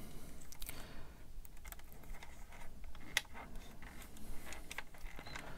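Small plastic model-kit parts being handled and pressed together, giving light, irregular clicks and taps, one sharper click about three seconds in.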